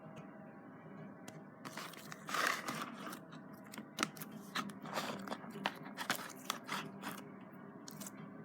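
Slime being kneaded and stretched by hand, a mix of clear slime and brown fluffy slime, giving irregular crackling and sharp popping sounds. The sounds start about two seconds in and die away near the end.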